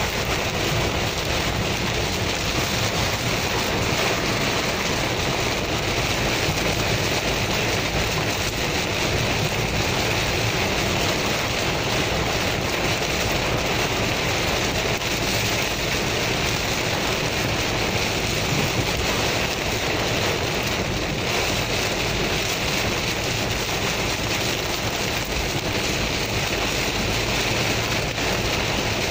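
Heavy rain beating on a moving car's windscreen and roof, heard from inside the cabin, mixed with the steady hiss of tyres on the wet road. An even, unbroken wash of noise.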